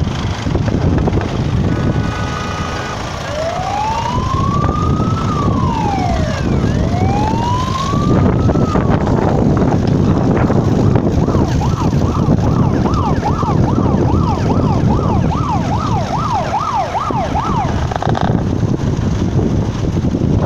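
Emergency vehicle siren sounding. It gives two slow rising-and-falling wails, then a few seconds later switches to a fast yelp of about three sweeps a second, which cuts off near the end. Heavy wind rumble on the microphone runs underneath.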